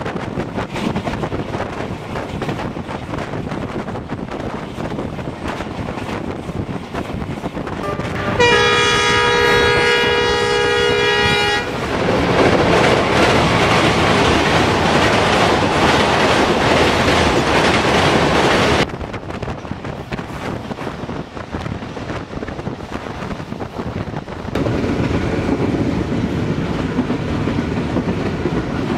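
Passenger train running at speed, with wheels clattering on the rails. About eight seconds in, the train's horn sounds one steady blast of about three seconds. The running noise drops suddenly near the two-thirds mark and rises again about five seconds later.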